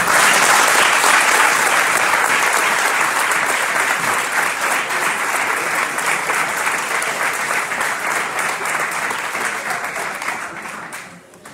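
Audience applauding: dense clapping that starts suddenly, holds steady, and fades out near the end.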